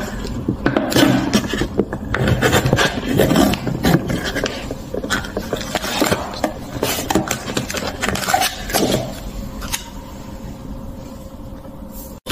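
Paper lid being peeled back from a paper instant-noodle cup and the plastic sauce packets pulled out and handled: a busy run of crinkles, rustles and light scrapes that quiets down over the last couple of seconds.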